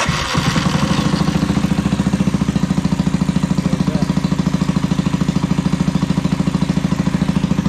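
Suzuki GN250's single-cylinder four-stroke engine idling with a steady, even beat, having started on the first try after its carburettor float height was corrected.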